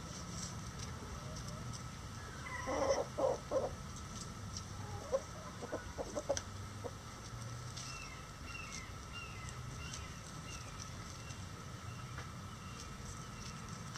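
Bantam chickens clucking: a run of three loud clucks about three seconds in, then a few shorter, quieter clucks around six seconds, with faint high chirps a little later.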